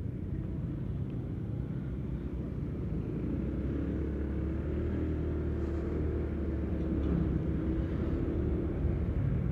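Honda PCX 160 scooter riding in traffic: its single-cylinder engine and road noise make a steady low rumble, which grows a little louder about three seconds in.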